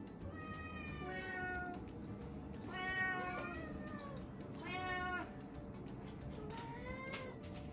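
Domestic cats meowing for food while being hand-fed: four drawn-out meows, the second with another cat's call overlapping it.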